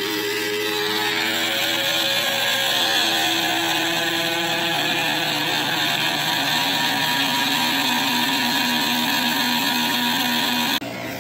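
A harsh, heavily distorted cartoon voice stretched into one endless 'ooo', with a stepping pitch over a thick noisy buzz. It cuts out briefly near the end.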